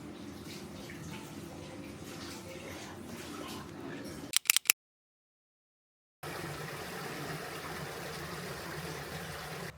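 Steady rushing noise of running water. About four and a half seconds in it is broken by a few sharp clicks and then a second and a half of dead silence, before it resumes.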